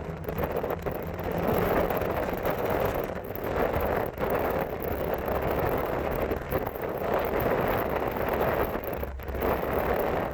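Turbocharged Toyota Tacoma pickup driving, with steady engine and road noise and wind buffeting the microphone. The sound dips briefly a few times.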